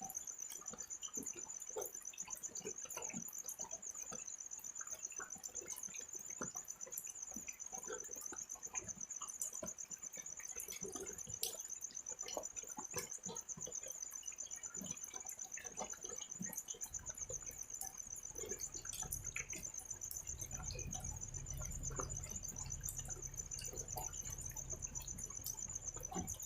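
Light night drizzle pattering and dripping in scattered drops, under a cricket's steady, high-pitched trill. A low rumble joins about two-thirds of the way through.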